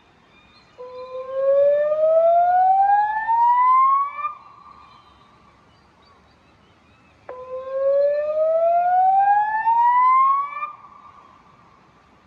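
Electronic warning siren sounding through Bosch LBC-3406 horn loudspeakers: two slow rising whoops, each climbing in pitch for about three and a half seconds and then cutting off, with a faint lingering tone between them. It is a warning activation, the signal that the river water is about to rise.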